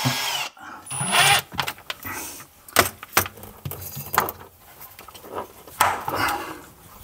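A Milwaukee FUEL brushless cordless drill-driver's whine cuts off about half a second in. Irregular sharp clicks, knocks and rustles follow as copper pipes are handled and pressed into plastic pipe clips.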